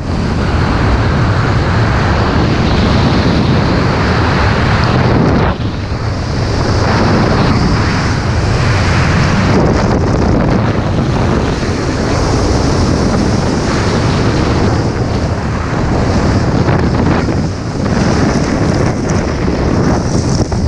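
Loud wind noise from the air rushing over the camera microphone during a skydive descent, dipping briefly twice.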